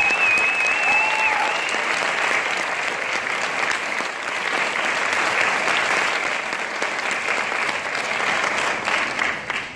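Audience applauding after a school string orchestra's piece. Near the start a high, wavering whistle and a short cheer come from the crowd. The clapping dies away right at the end.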